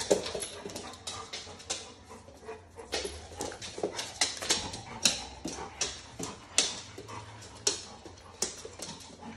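Two dogs, a small white terrier and a large yellow dog, play-fighting, with short dog vocal sounds and many sharp, irregular clicks from their scrabbling on a laminate floor, several a second.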